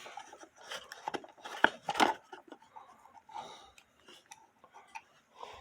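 Filler paper being pushed into a cuckoo clock case: irregular soft rustling and light clicks, with two sharper clicks about a second and a half to two seconds in.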